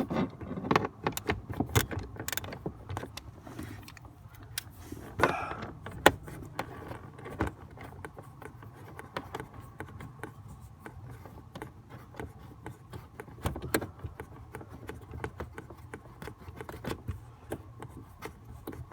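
Scattered metallic clicks, taps and rattles of hand tools, screws and loose parts while the steering column around the ignition switch is taken apart, with a sharper knock about six seconds in.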